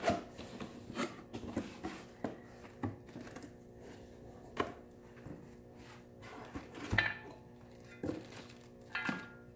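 Cardboard box being opened by hand: flaps pulled back and handled, with a string of sharp knocks and taps, the loudest about seven seconds in.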